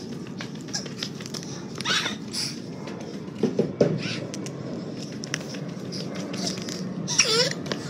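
Paper food wrapper rustling and crinkling as it is handled: a scattered run of light crackles over a steady background hiss.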